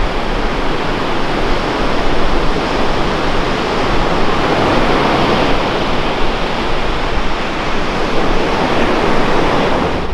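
Ocean surf breaking on a beach: a steady, loud wash of waves that swells around the middle.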